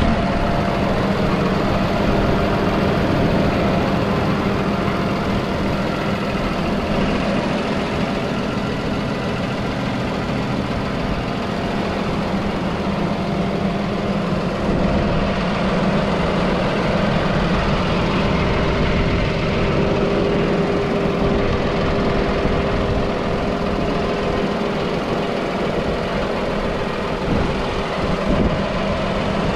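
Deutz-Fahr Agrotron 6155's six-cylinder diesel engine idling steadily.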